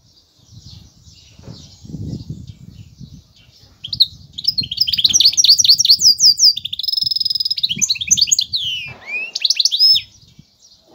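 Goldfinch hybrid (mule) singing: soft twittering at first, then from about four seconds in a loud, fast song of chirps and trills, with a buzzy rolling trill and a few falling notes, breaking off suddenly near the end.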